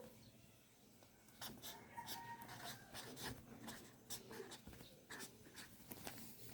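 Faint scratching strokes and light taps of a pen writing on paper.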